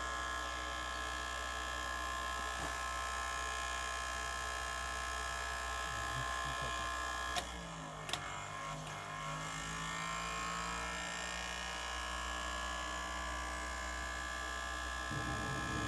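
GAZ-66 pre-start heater's electric motor running with a steady buzzing hum while the petrol heater fails to light. About halfway there are two sharp clicks, and the low hum drops out for a couple of seconds before coming back.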